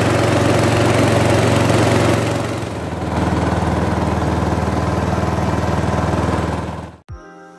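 Small boat engine running hard under the river boat, throttled back about two and a half seconds in and running on at a slower pace, then cutting off abruptly near the end.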